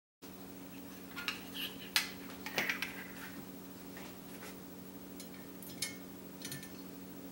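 Metal kitchen utensils clinking and clicking against metal S-hooks and a wire rack as they are hung up, in scattered knocks that are busiest in the first few seconds. A steady low hum runs underneath.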